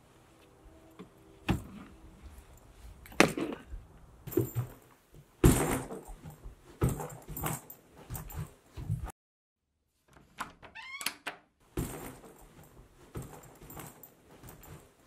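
Heavy thuds and knocks about a second apart, then a sudden drop to silence, a short rising squeak, and more knocks.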